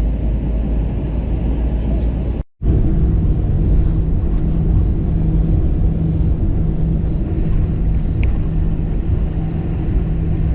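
Car driving: a steady low rumble of engine and road noise. The sound drops out for a moment about two and a half seconds in, then carries on with a steady hum.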